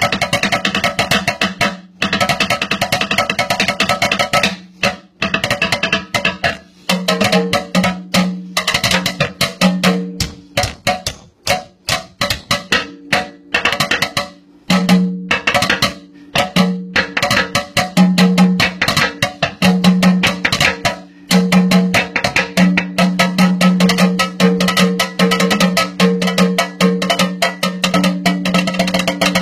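A kitchen sink played as a drum kit: fast, dense rhythmic strikes with a few brief pauses, and a low steady note that comes and goes underneath.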